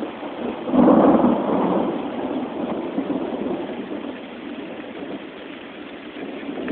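A thunderclap breaks about a second in and rumbles away over the next few seconds, over steady rain.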